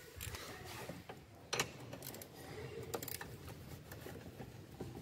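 Scattered light clicks and knocks of hand work on a car engine's parts and fittings, with one sharper knock about one and a half seconds in.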